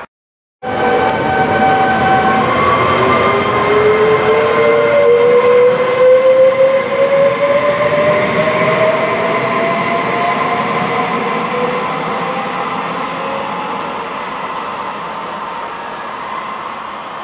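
Trenitalia Pop (ETR104) electric multiple unit pulling away: its traction motors and inverters whine in several tones that rise in pitch as it gathers speed, over the rumble of wheels on rail. It starts abruptly about half a second in, is loudest midway, then slowly fades.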